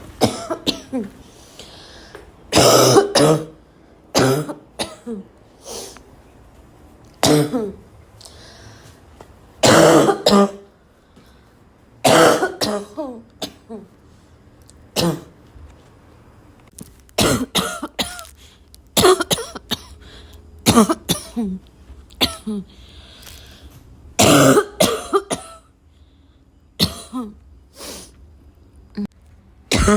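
A person coughing again and again with a dry, barking cough: short harsh coughs, singly or in quick pairs, every second or two.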